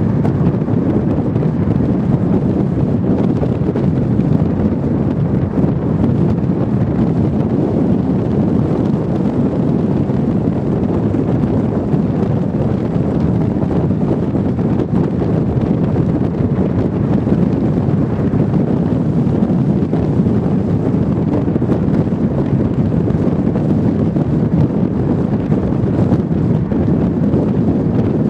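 Steady wind rush and road noise from a car driving at speed, with wind blowing on the microphone.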